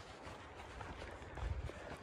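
A hiker's footsteps on a trail, irregular steps, with a low rumble about a second and a half in.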